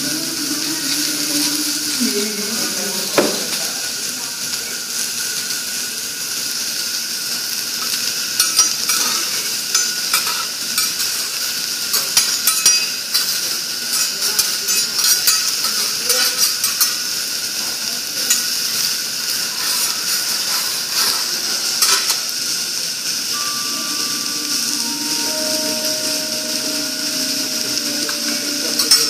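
Food sizzling steadily on a hot teppanyaki griddle, with a metal spatula clicking and scraping against the plate, most busily through the middle.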